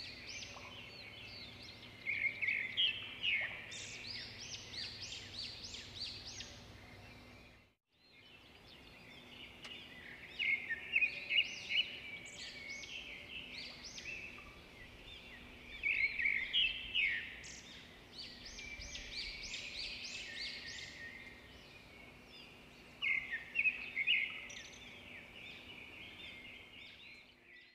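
Songbirds chirping and trilling in quick runs of high notes, four bursts of song with short pauses between, over a faint steady hum.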